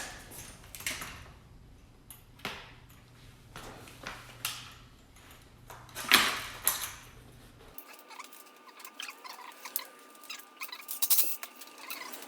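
Scattered small clicks, taps and rattles of tools and drill bits being handled while the size for enlarging the rim's valve hole is worked out. A low background hum stops abruptly about eight seconds in, after which the clicking gets quicker and denser.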